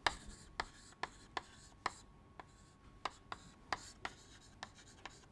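Chalk writing on a chalkboard: a run of short, sharp taps and scratches, about two a second, as letters are chalked onto the board.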